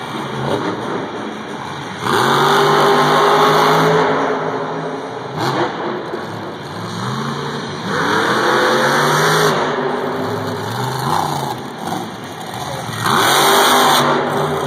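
Monster truck's supercharged V8 engine revving hard in repeated surges, its pitch climbing and falling as the throttle is worked, loudest about two, eight and thirteen seconds in.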